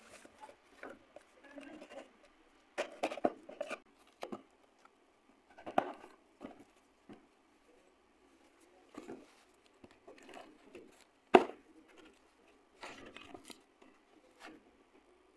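Hands tapping, scratching and pulling at a taped cardboard carton as it is opened: scattered taps and rustling cardboard with quiet gaps, and one sharp, loud knock about two-thirds of the way through.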